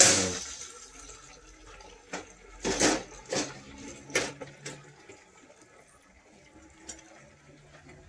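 Hot oil in a propane turkey fryer pot hissing and boiling up as a whole turkey goes back in, loudest at the start and dying down within about a second. Several shorter sputtering bursts follow between about two and five seconds in.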